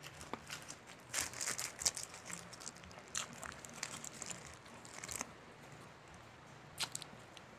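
Close-miked crackling and crunching of crispy breaded fried chicken being torn and bitten into. The crackles come in bouts of about a second or two, with a short last one near the end.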